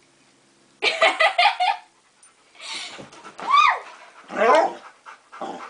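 Dog vocalising in play: a quick run of high yips about a second in, then two loud whining yelps that rise and fall in pitch.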